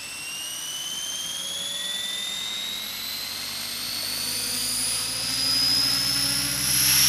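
Align T-Rex 600 electric RC helicopter on a 12-cell battery spooling up on the ground. A high whine rises steadily in pitch, and a low rotor hum grows louder near the end.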